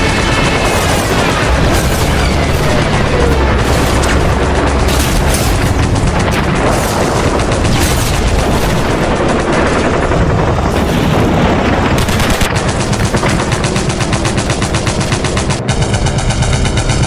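Battle sound effects of sustained machine-gun fire, dense and continuous with rapid shots packed closely together.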